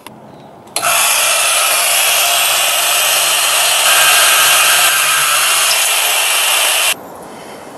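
Chicago Electric portable band saw, mounted in a homemade chop-saw frame, running and cutting through a steel bolt. It starts about a second in with a steady loud sawing noise and stops abruptly about a second before the end.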